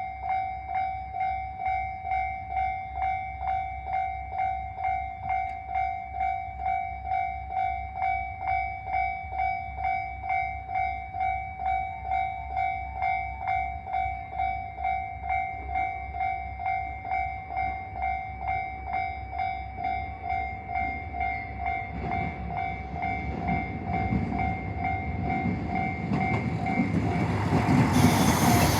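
Japanese level-crossing alarm ringing its electronic two-tone bell in even, repeated strikes, under two a second. About twenty seconds in, the noise of an approaching diesel train rises under it and grows loud near the end.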